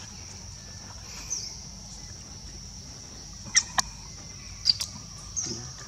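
Steady high-pitched insect drone with repeated short falling chirps, cut by two pairs of sharp, very short squeaks a little past the middle.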